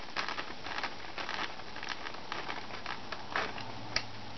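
Light, irregular scratchy clicks and rustles of a screw being turned in by hand to fix the wing onto a foam RC plane, with a sharper click about four seconds in.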